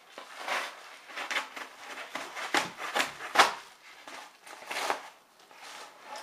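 A package being slit open with a folding knife and its wrapping torn and rustled: a run of scraping, tearing strokes, loudest and sharpest in the middle.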